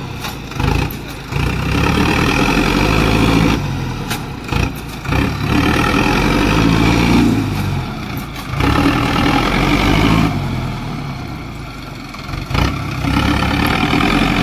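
Sonalika DI 750 tractor's diesel engine labouring under heavy load on a steep sandy climb, rear wheels spinning in loose sand; the engine note swells and sags several times as it fails to pull up the slope.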